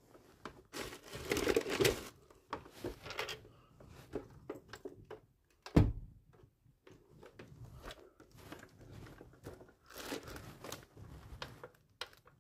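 Handling noise as a flat-screen monitor is picked up and turned over by hand: irregular rustling and scraping of its plastic casing and cord, with one sharp knock about six seconds in.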